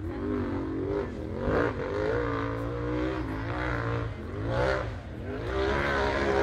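Rock bouncer race buggy's engine revving hard in repeated surges, its pitch climbing and dropping every second or so.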